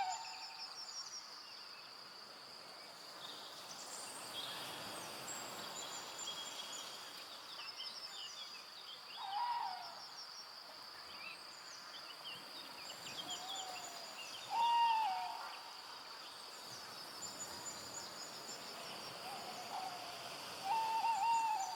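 Forest evening soundscape: a steady high insect drone under scattered small-bird chirps, with a low hooting bird call sounding four times, the loudest about two thirds of the way in.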